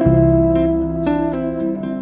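Background instrumental music: sustained, layered notes, with new notes coming in at the start and again about a second in.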